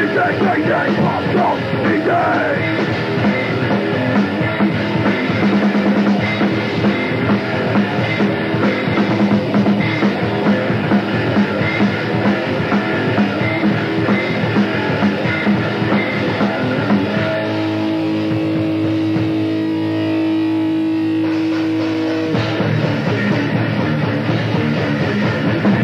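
Grindcore/power-violence band playing fast, with distorted guitars and drums, from a 1998 split cassette. About two-thirds of the way through, the drumming thins and a few held guitar notes ring out for several seconds, then the full band comes back in.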